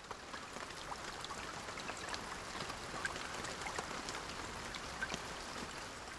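Steady patter of falling rain, an even hiss dotted with scattered drip ticks.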